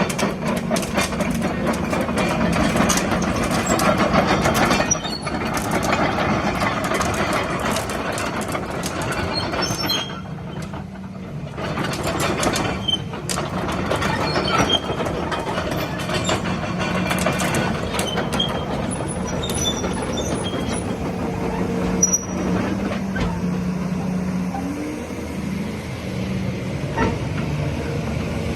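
Volvo EC210BLC crawler excavator running, its diesel engine holding a steady hum while frequent metallic clicks, clanks and short squeaks come from the machine; the din eases briefly about ten seconds in.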